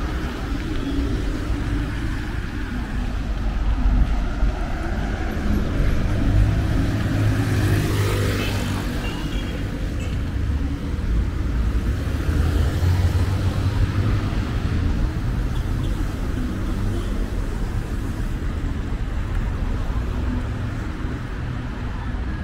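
City street traffic: a steady rumble of road vehicles, with one vehicle passing close about a third of the way in, its engine noise swelling and then fading.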